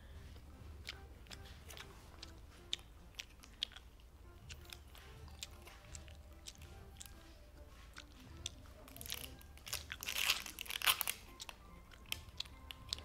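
Wet clicks of a gummy eyeball candy being chewed, then scissors snipping and a plastic blister pack crinkling as it is cut and peeled open, with a loud burst of crackling about ten seconds in.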